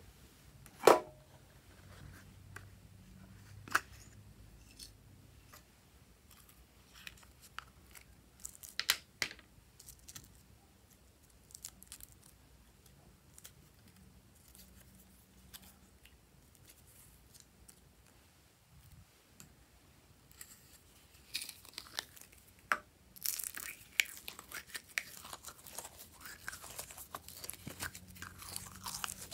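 Glossy and glitter slime handled by fingers in a glass tray: a few scattered taps and sticky clicks, the loudest about a second in. Over the last eight seconds comes a dense run of crackly, sticky clicks as purple glitter slime is worked and pressed out of a small plastic container.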